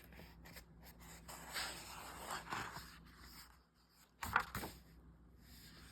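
A paper picture book being handled: a soft rustle of pages, then two sharp knocks about four seconds in.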